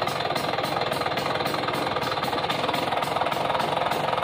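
1990 Vespa PX 200S's single-cylinder two-stroke engine running steadily with a fast, even putter, freshly started on the electric starter with the choke pulled out.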